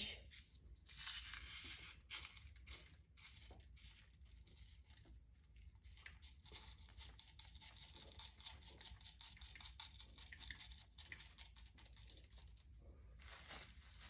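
Faint, intermittent crackling and rustling with small ticks as gloved fingers pinch finely crushed mirror glass from a small container and sprinkle it along the edge of a resin bowl.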